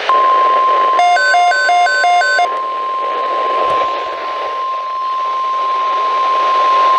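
NOAA Weather Radio 1050 Hz warning alarm tone: one steady, loud, pure tone that switches on at once and holds, with radio static hissing underneath. About a second in, a buzzy beeping that alternates between a low and a high pitch plays over it for about a second and a half.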